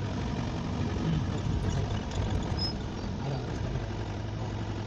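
A jeep's engine running steadily while the vehicle is underway, with a constant low hum.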